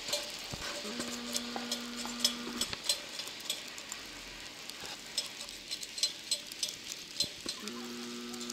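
Rain pattering close to the microphone on a chairlift ride: many irregular sharp ticks over a steady hiss. A steady humming tone sounds for about two seconds about a second in, and again near the end.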